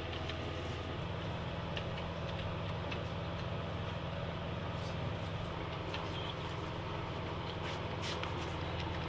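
Computer keyboard keys tapped in scattered, irregular clicks over a steady low hum.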